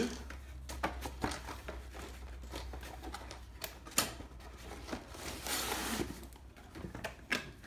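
A cardboard Lego set box handled on a table: light taps, knocks and rustles as its lid and flap are moved, with a scrape of cardboard sliding against cardboard a little past the middle.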